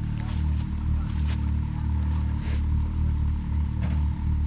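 Can-Am Maverick X3 side-by-side's turbocharged three-cylinder engine running at low, fairly steady revs while the machine crawls up a short climb, with a few scattered knocks.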